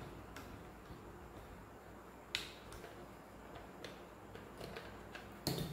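Faint small clicks and taps from a screwdriver and wires being worked at the terminals of plastic miniature circuit breakers in a panel board. One sharper click comes about two seconds in and a louder knock near the end.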